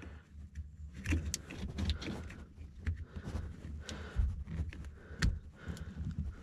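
Plastic wiring-harness connectors being handled and swapped between the bucket-control actuators of a Bobcat 864 skid steer. Scattered light clicks and knocks sound over low handling rumble.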